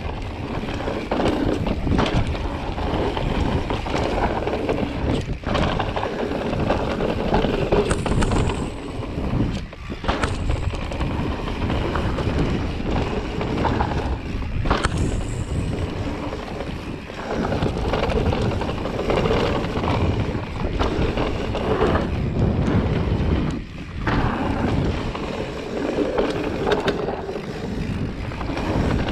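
Wind noise on the camera microphone and tyre noise on dirt as an electric mountain bike rides fast down forest singletrack. Frequent knocks and rattles come from the bike over bumps.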